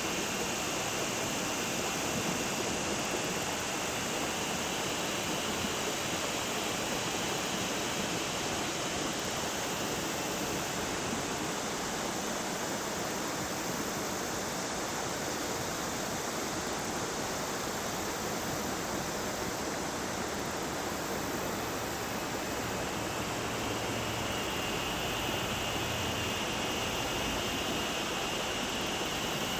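River water rushing steadily over shoals: an even, unbroken rush.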